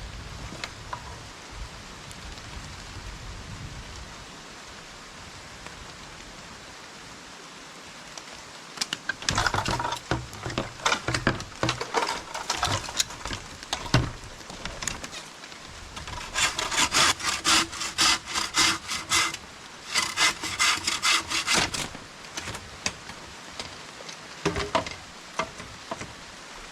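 Hand saw cutting with quick back-and-forth strokes in several runs, starting about a third of the way in, with pauses between them. Steady rain hiss underneath.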